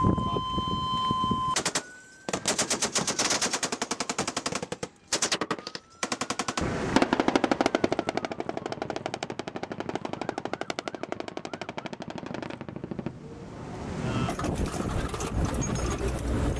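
A .50-calibre M2 Browning heavy machine gun firing long bursts of rapid, evenly spaced shots, with short breaks about five and six seconds in. A steady high beep sounds at the start and cuts off about a second and a half in.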